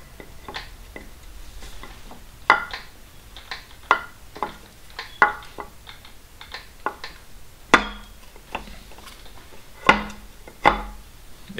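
Irregular light metallic clicks and knocks as an oil pump housing is worked by hand onto the front of a 2JZ engine block and over the crankshaft nose, with a few sharper knocks near the end.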